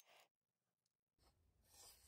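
Near silence: faint room tone, with one faint click at the very start and a faint low rumble and hiss in the second half.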